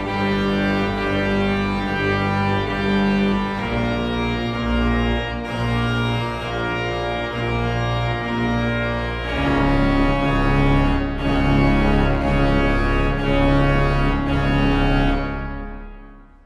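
Pipe organ playing full sustained chords that shift about four and nine seconds in, growing louder in the second half, then fading away near the end as the final chord dies out.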